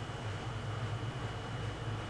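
Steady low hum under an even hiss: constant background machine noise, with no distinct event.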